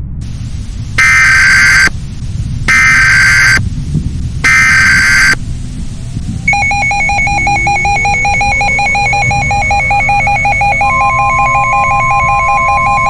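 Mock Emergency Alert System alert: three bursts of SAME header data tones, each about a second long and about a second apart, followed from about halfway by a loud, steadily pulsing electronic attention tone. Rising glides like a siren winding up come in behind the attention tone, and a low rumble sits under everything.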